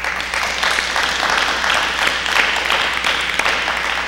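Audience applauding, many hands clapping together. It starts suddenly and holds at a steady level.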